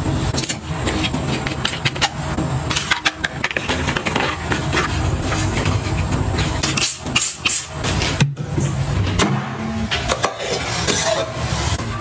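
Items being handled and set down, making many small clicks and knocks over a steady low rumble.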